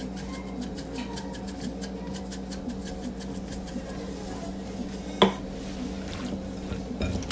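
Seasoned raw shrimp being mixed in a bowl: a run of quick, soft clicks against the bowl, then one sharper knock about five seconds in.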